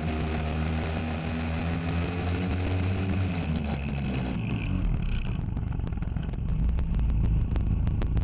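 Small outboard motor on an inflatable dinghy running under way, then throttled back about four seconds in, its pitch dropping as the dinghy slows to come alongside a boat.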